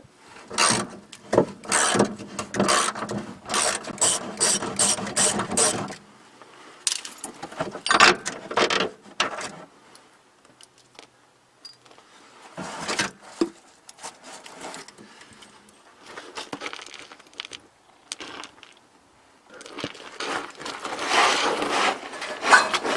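Hand ratchet wrench clicking in quick runs while unscrewing a shock absorber's mounting bolt. The clicking is dense at first, then breaks into scattered single clicks and pauses, and picks up again near the end.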